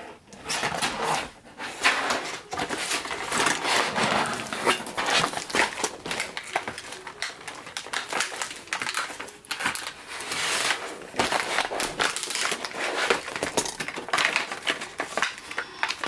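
Handling noise from a toy blaster's box: packaging rustling and crinkling, with many small clicks and knocks, as the foam darts are pulled out.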